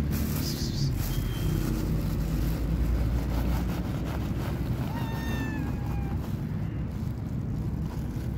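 A stray domestic cat meows once, about five seconds in: one slightly falling call lasting about a second, over a constant low rumble.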